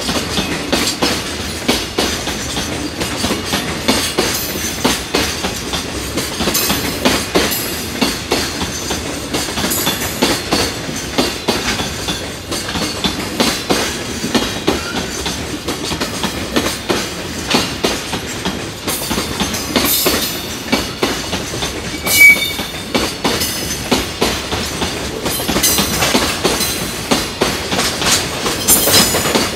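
Long freight train of container flatcars passing close by, its wheels clattering over the rail joints in a steady clickety-clack, with one sharper knock a little past two-thirds of the way through.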